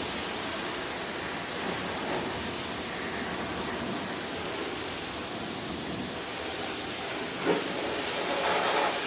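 Greenworks 2000 PSI electric pressure washer spraying, a steady hiss of the water jet.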